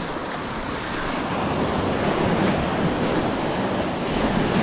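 Small sea waves breaking and washing around boulders in shallow water, a steady surf that grows slightly louder, with wind buffeting the microphone.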